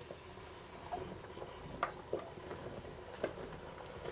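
A few soft, separate knocks and taps as chopped zucchini and eggplant pieces are tipped into a multicooker pot.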